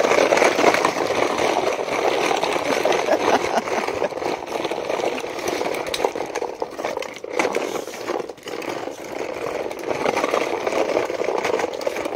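Plastic toy truck's hard wheels rolling and rattling over rough concrete as it is pushed along, a continuous gritty rumble with small clicks, easing off briefly around the middle.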